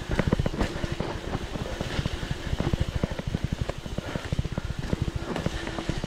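Mountain bike rattling and thudding over a rough trail, a quick irregular run of knocks and jolts with a low rumble beneath.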